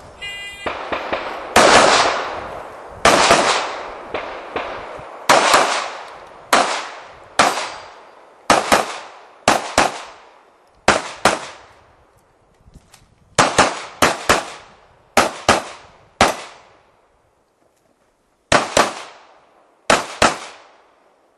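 A short electronic beep about half a second in, then a stage of rapid practical-shooting gunfire: about two dozen sharp shots, many fired as quick pairs, each with a ringing tail, with brief pauses between groups and a longer pause near the end.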